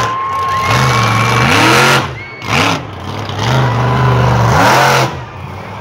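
A monster truck's big engine revving hard in about three surges, the pitch rising and falling with each burst of throttle.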